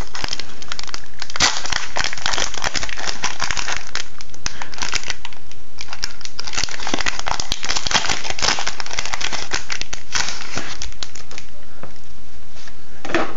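A Pokémon TCG booster pack's foil wrapper crinkling and crackling close to the microphone as it is torn open and the cards are pulled out. It quietens after about ten seconds.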